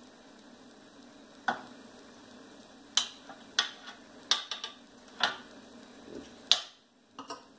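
Metal kitchen tongs clicking against a metal broiler pan and the slow cooker's crock as ribs are lifted out and set down: about ten sharp, irregular clacks.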